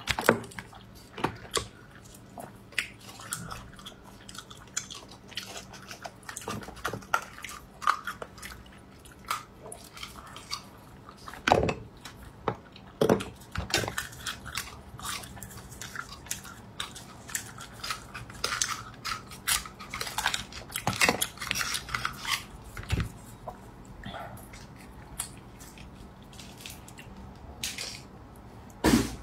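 A person eating raw oysters: close chewing and mouth sounds, mixed with scattered sharp clicks and clacks as the rough oyster shells are handled.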